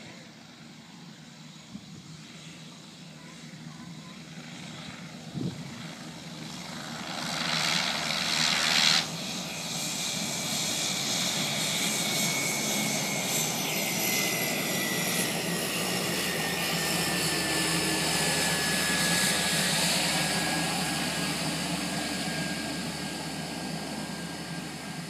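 Cessna Caravan's single turboprop engine and propeller as the plane lands and rolls out. The noise builds for about eight seconds, peaks as the plane comes close, then drops suddenly about nine seconds in. After that the engine runs on while taxiing, with a turbine whine that slowly falls in pitch.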